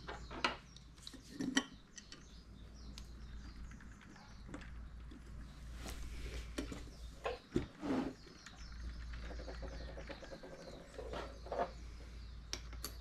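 Light clicks and knocks of small metal carburetor parts and hand tools being handled and set down on a workbench, at uneven intervals, over a low steady hum.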